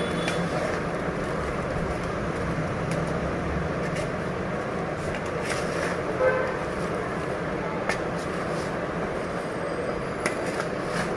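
A spoon stirring chopped raw mango, spices and oil in a large metal plate, with a few faint clicks against the plate, over a steady background rumble.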